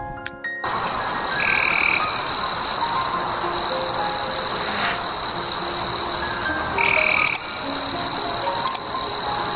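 A dense, steady, high-pitched trilling chorus of calling animals that starts suddenly, breaks off briefly twice and resumes. A shorter, lower call sounds twice.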